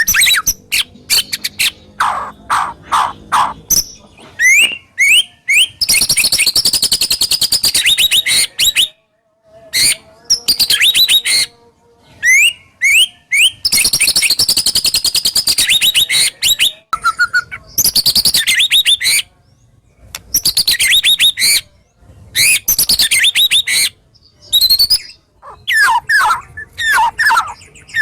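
White-rumped shama (murai batu) singing a loud, varied song. It delivers phrases of rapid-fire harsh, sharp notes ('tembakan kasar') and quick rising whistles, broken by brief pauses.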